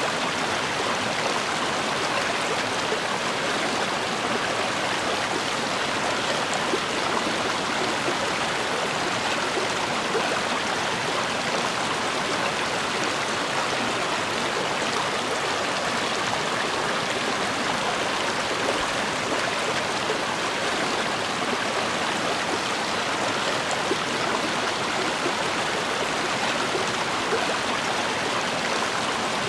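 River water rushing and babbling over rocks in a steady, unbroken flow.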